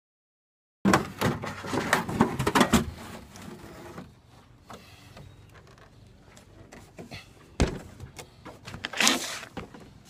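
Knocking and clattering of a rooftop RV air conditioner's cover being handled and lifted off the unit: a dense run of loud knocks starting about a second in, quieter handling after, then one sharp knock and a short rustle near the end.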